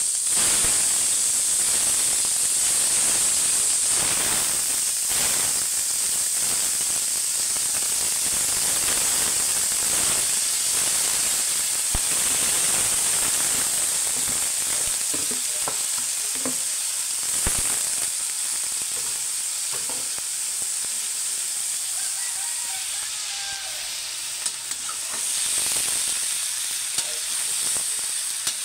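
Sliced young jackfruit sizzling in hot oil in a metal wok with sautéed onions, a steady frying hiss that jumps up loudly as the jackfruit goes into the pan. Short scrapes and knocks of stirring against the wok come now and then.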